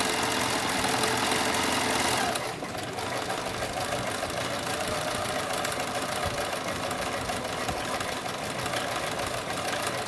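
Electric domestic sewing machine running steadily as it sews a zigzag stitch, the needle going up and down rapidly. It turns a little quieter about two and a half seconds in.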